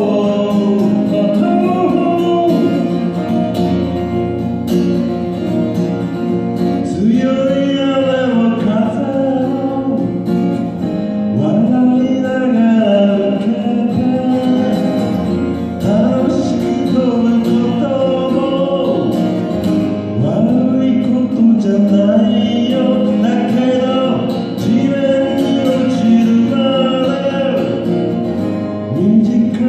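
A man singing in Japanese over his own strummed Guild JF-55 jumbo acoustic guitar, a steady folk-song accompaniment of repeated chord strums under a held, wavering vocal line.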